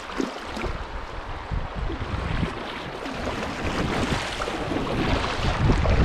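A double-bladed kayak paddle dipping and splashing in river water with each stroke, with wind rumbling on the microphone that gets louder near the end.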